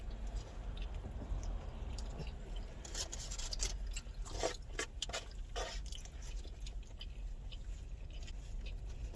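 People chewing and biting carne asada fries close to the microphone: wet mouth clicks and chewing noises, bunched most thickly through the middle, over a steady low hum.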